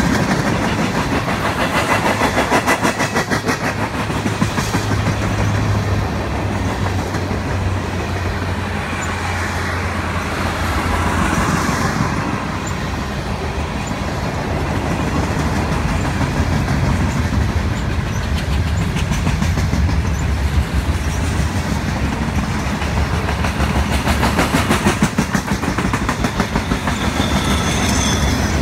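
Freight train cars, tank cars then boxcars, rolling steadily past: a continuous rumble of steel wheels on the rails with rapid, rhythmic clickety-clack.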